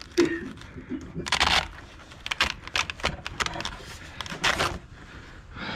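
Hands handling a LiPo battery in the nose battery bay of an E-flite Air Tractor RC plane: a string of short plastic scrapes and clicks, with two or three louder rasping scrapes.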